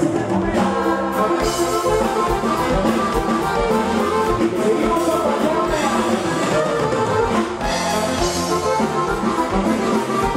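Live norteño-style band playing a dance number, with saxophone, drum kit and keyboard, and some singing.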